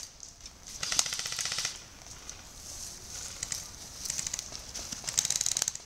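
Airsoft electric guns firing on full auto: a rapid, even clatter of shots in two bursts of about a second each, one about a second in and another near the end, with a few single shots between.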